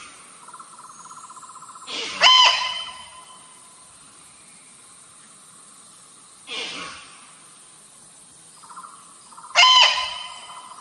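Female deer lure call repeating in a cycle. A buzzy, pulsing lead-in runs into a loud, high, piercing call, twice (about two seconds in and again near the end). A shorter breathy call comes between them, about six and a half seconds in.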